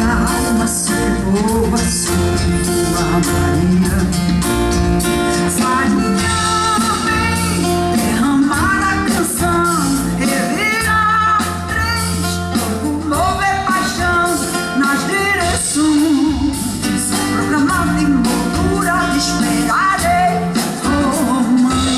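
Live band playing Brazilian popular music, with a woman singing a melody over guitar, bass and percussion.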